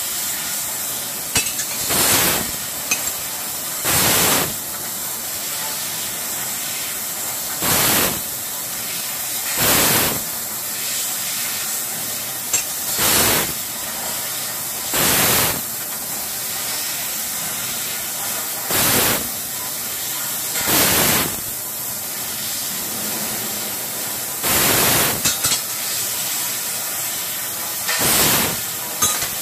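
Han's Laser P6018D tube laser cutting machine cutting a hollow tube: a steady hiss, broken by loud rushing bursts of about half a second to a second each, mostly in pairs about two seconds apart.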